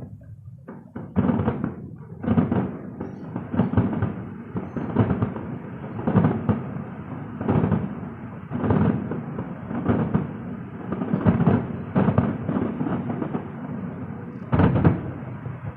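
Fireworks bursting one after another, a bang about every second and a quarter, each trailing off in a rumble.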